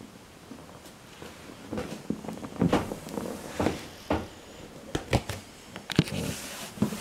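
Irregular soft knocks, taps and rustles on a hard floor, several in a row, the sharpest about six seconds in.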